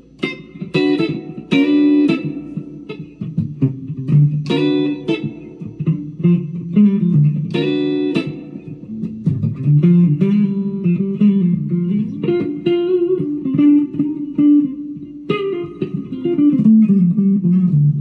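Firefly FFLPS Les Paul-copy electric guitar played on its neck pickup, with a dark tone. Chords are struck several times over the first eight seconds or so, then a single-note melody moves around in the low register.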